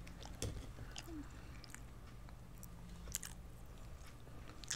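Eating canned sardines: a few faint, sharp clicks and ticks scattered through, from a metal fork and fingers picking at the sardine tin and soft chewing of the fish.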